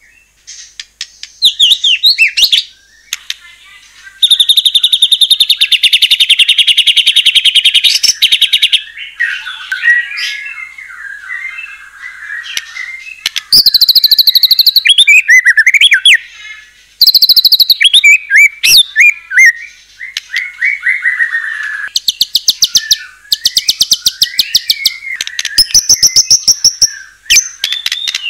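White-rumped shama (murai batu) singing loudly in full song: long, very fast stuttering trills and rattles alternating with sliding whistled phrases, broken by short pauses.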